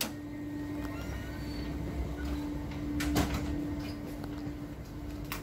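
A steady hum with a low rumble under it, and a single knock about three seconds in.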